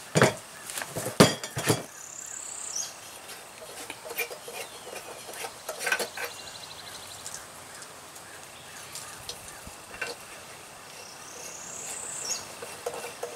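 Clinks, taps and clicks of glass and metal as a light bulb is handled and screwed into a glass-paned porch lantern. A few sharp clicks in the first two seconds are the loudest, followed by scattered lighter taps.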